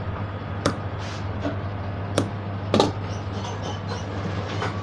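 Large tailor's shears snipping notches into stiff white buckram: about four sharp cuts, the loudest near the middle, over a steady low hum.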